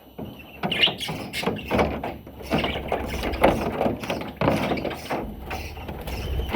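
Budgerigar chattering: a continuous run of quick clicks and scratchy squeaks.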